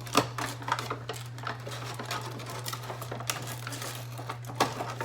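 Irregular clicks, taps and light rustling from handling an action figure's plastic and cardboard packaging, over a steady low hum.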